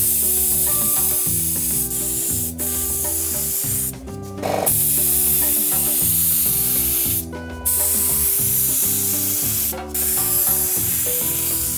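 Compressed-air gravity-feed spray gun hissing as it sprays melted coloured cocoa butter onto chocolate moulds, in about five bursts of one to three seconds with brief breaks between them. Faint background music underneath.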